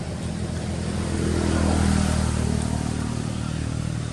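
A motor vehicle engine running nearby. It grows louder about a second in, peaks around the middle, then eases off, like a vehicle passing by.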